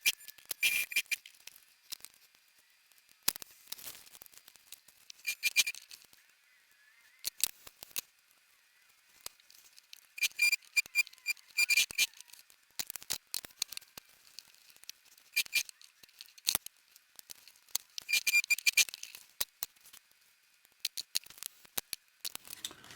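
Short runs of rapid clicking and rattling, with scattered single clicks between them, from a sewing machine being worked slowly through thick nylon webbing.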